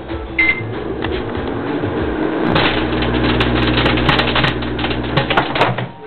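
A short beep about half a second in, then a microwave oven running with a steady hum while a CD inside arcs, a rapid irregular crackle of sparks over the hum. Both stop just before the end.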